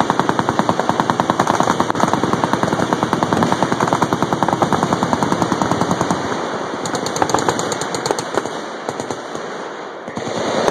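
Many machine guns firing at once in continuous, overlapping automatic bursts. The fire thins out in the last few seconds.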